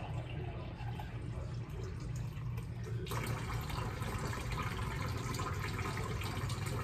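Water being poured for cooking rice, an even splashing hiss that starts about three seconds in and keeps going, over a low steady hum.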